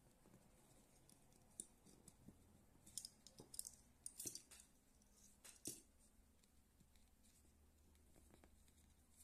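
Faint rustling and scratching of satin rattail cord being handled and pulled by hand, with a cluster of short scratchy clicks in the middle.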